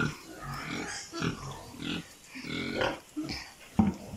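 A pig grunting in short, irregular bursts, with one sharp knock near the end.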